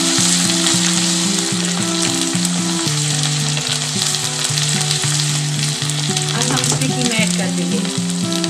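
Sliced onions and ginger-garlic paste sizzling in hot oil in a pan while being stirred with a wooden spatula: a steady frying hiss.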